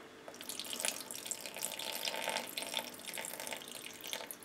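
Mushroom soaking liquid trickling from a glass measuring jug into a slow cooker of chopped vegetables, poured slowly and carefully so the grit in the bottom stays behind; the trickle thins out near the end.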